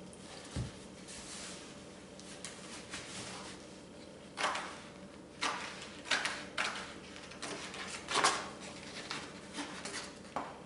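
Large scissors cutting through primed artist's canvas pulled off a roll: a series of short, crisp snips with the canvas rustling, coming at irregular intervals from about four seconds in.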